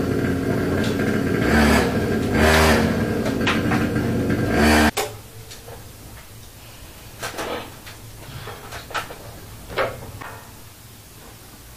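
Handheld electric drill running as it bores into the wall, with the pitch steady and a few louder surges as it is pushed in. It stops suddenly about five seconds in, and a few light knocks and taps of parts being handled against the wall follow.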